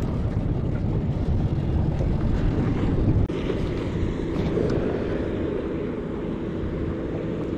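Wind rumbling on the microphone in a small open boat on choppy sea, heavier for the first three seconds and then easing a little, with a faint steady hum joining in about then.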